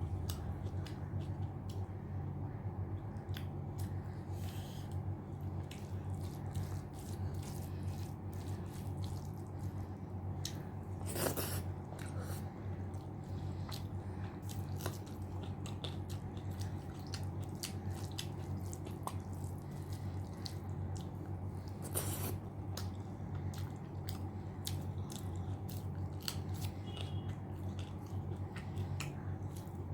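Close-miked chewing and mouth sounds of someone eating mutton curry with rice: many small wet clicks and smacks, with two louder, longer noises around 11 and 22 seconds in, over a steady low hum.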